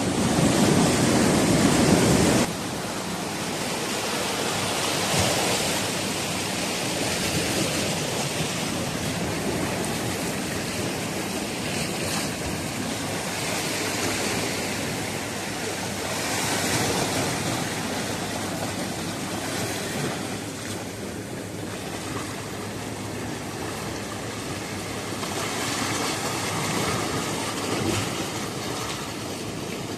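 Sea surf washing against a rocky shore, a steady wash that swells and eases. It is louder with a low rumble at first and drops suddenly about two and a half seconds in.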